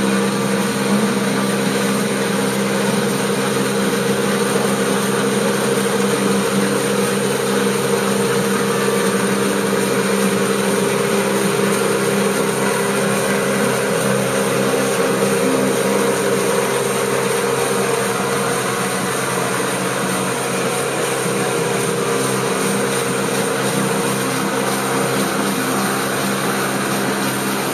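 Kubota SR-J5 combine harvester's engine running steadily at full throttle while it cuts and threshes rice, a constant mechanical drone.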